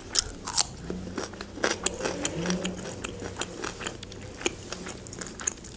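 Close-up chewing and crunching of fresh cucumber slices, a run of many small crisp clicks.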